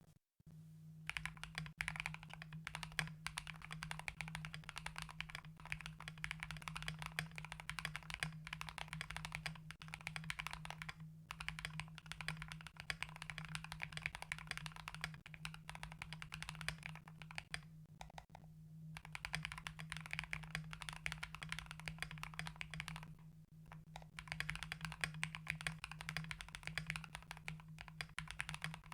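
Continuous typing on a mechanical keyboard with lubed Akko Radiant Red linear switches, mounted on an FR4 plate in an aluminium case and capped with XDA-profile keycaps. The rapid key clacks break off in a few short pauses.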